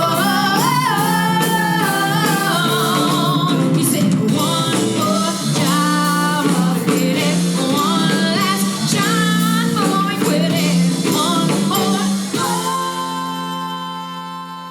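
A yacht rock band playing with lead and backing vocals over a full band, ending on a held final chord that rings out and fades.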